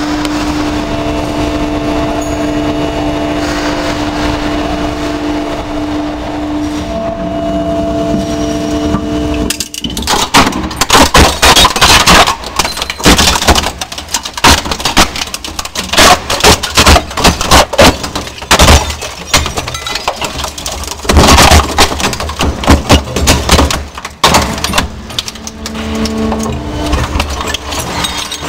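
Scrap crusher running with a steady hum, then, about ten seconds in, loud irregular cracking and crunching as it breaks car alternators and other metal and plastic parts in its hopper. The steady hum comes back near the end.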